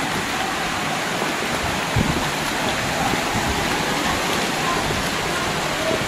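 Shallow creek water rushing steadily over small sandstone ledges and step-like cascades, with a single soft thump about two seconds in.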